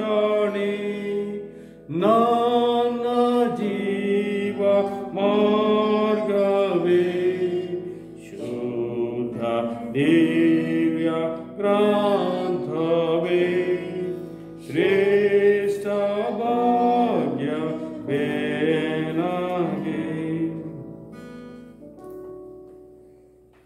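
A man singing a Kannada hymn alone, in phrases of about two seconds with held, wavering notes; the last note fades out near the end.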